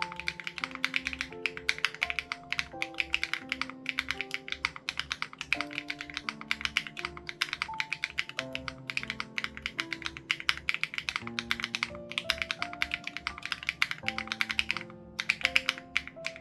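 Fast typing on an SPM AL87B mechanical keyboard with BSUN Raw switches and its sound-dampening foam removed: a dense run of key clacks, with a short pause near the end. Soft background music with held notes and a steady low beat plays underneath.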